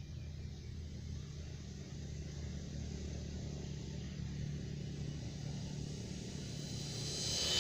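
Art-Tech Cessna 182 radio-controlled model airplane droning steadily in flight. Near the end it swells into a louder rush as it passes close, then falls away.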